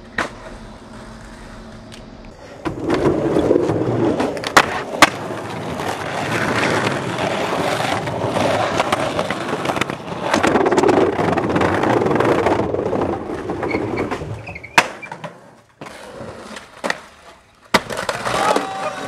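Skateboard wheels rolling loudly over pavement, with several sharp clacks of the board: two close together about four and a half seconds in, and more after the rolling stops near the end.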